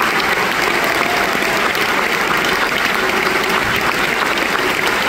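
A large theatre audience applauding steadily, with dense clapping that holds an even level throughout.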